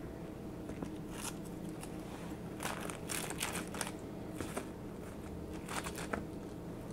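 Crumbly granola bars crackling and crunching as they are pulled apart and handled by hand on parchment paper, in several short bursts.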